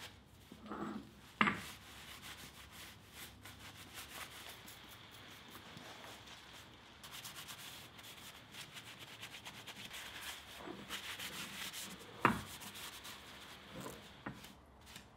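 A cloth rag rubbing and wiping steel power hammer dies to clean and degrease them, turning to rapid, even scrubbing strokes through the middle. Two sharp knocks, one near the start and one near the end.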